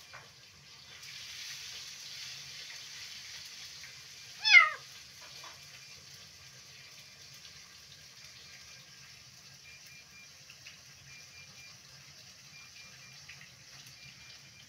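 A kitten meowing once, a short loud call that falls in pitch, about four and a half seconds in, with a faint second call just after. Before it, a soft rushing noise runs for a few seconds.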